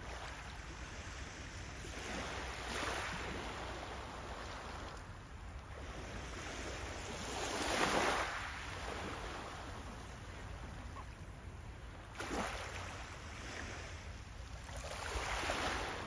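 Small sea waves lapping onto a pebble beach, each wash swelling into a hiss and falling away, about four in all, the loudest about eight seconds in. A low steady rumble lies underneath.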